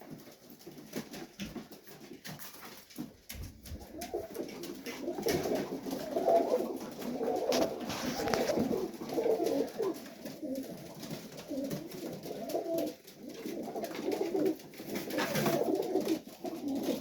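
Serbian highflyer pigeons cooing in a loft, several birds overlapping in a continual low warbling coo, with scattered sharp taps.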